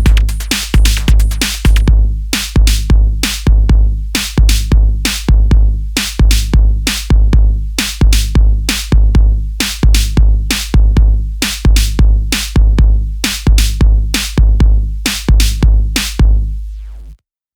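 Closing bars of an electronic dance track: a drum-machine kick pattern over deep bass at about two beats a second. The bright hi-hat layer drops out about two seconds in, and the track cuts off abruptly shortly before the end.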